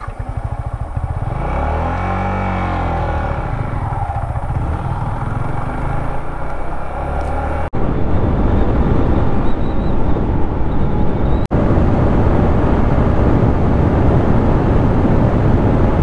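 Yamaha MT-15's single-cylinder engine pulling away and riding under load, its revs rising and falling as it moves off, then running steadily at speed. The sound drops out for an instant twice in the second half.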